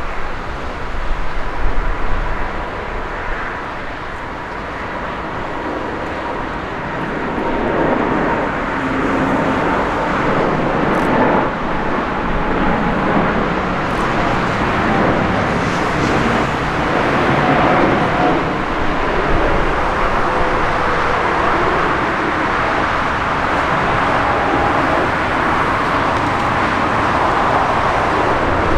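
Jet airliner engines running: a steady noise with a faint whine in it, which grows louder from about a quarter of the way in and then holds.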